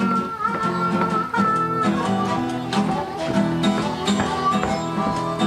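Acoustic guitar music in a country or bluegrass style. A long held high melody note runs over the first two seconds, then gives way to shorter notes.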